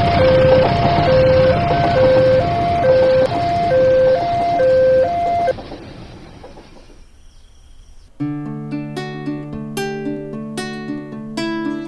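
Railway level crossing warning signal sounding an alternating two-tone ding-dong over the rumble of a passing train. The signal stops abruptly about five and a half seconds in and the train noise dies away, then strummed guitar music begins about eight seconds in.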